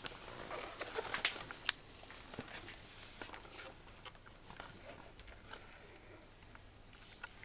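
Light clicks and taps of hands handling a static grass applicator and its crocodile clip over a tabletop, with one sharp click a little under two seconds in.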